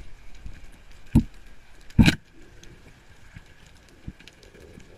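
Underwater sound with faint crackling and two sharp knocks, one about a second in and a louder one about two seconds in.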